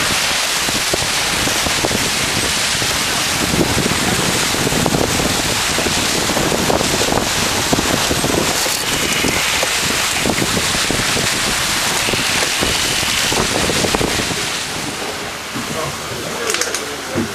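Wind buffeting the microphone over the rush of water along a sailboat's hull under sail, a dense, steady noise that eases slightly near the end.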